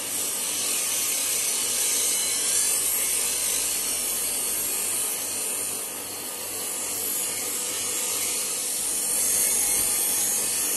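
Bench grinder running with a steel hacksaw blade held against its abrasive wheel: a steady grinding hiss over the motor's hum as an edge is ground onto the blade to make a knife. The grinding eases slightly midway and grows louder again near the end.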